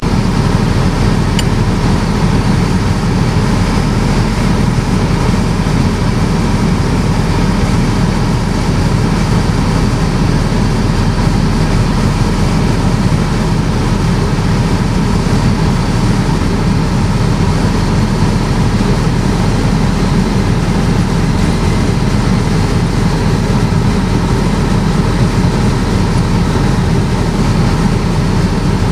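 Light aircraft's piston engine and propeller running steadily in flight, heard from inside the cockpit as a loud, unbroken drone mixed with airflow noise.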